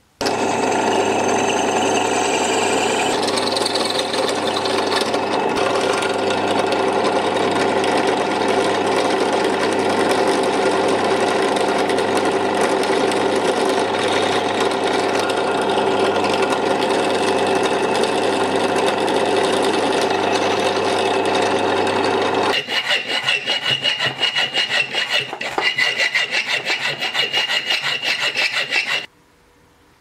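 Benchtop drill press running steadily, its motor humming as the bit bores a hole through a bent euro coin. About three-quarters of the way through this gives way to a hand file rasping over the coin in quick back-and-forth strokes, which stop abruptly shortly before the end.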